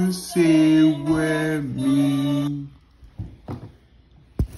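A cartoon song's closing held sung notes, played through a laptop speaker, stopping about two and a half seconds in. A few faint knocks follow, then one sharp knock near the end.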